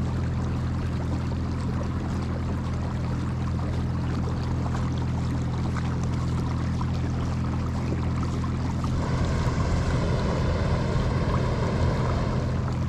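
Electric motor of a Minn Kota-powered kayak humming steadily while under way, with water washing along the hull. About nine seconds in, a louder rushing noise joins for roughly three seconds, then eases.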